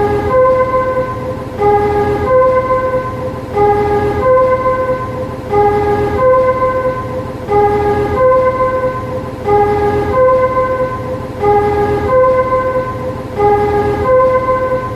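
Warning chime of a railway depot shunting vehicle: a short two-note electronic tune, a lower note then a longer note a third higher, repeated about every two seconds. A steady low hum runs underneath.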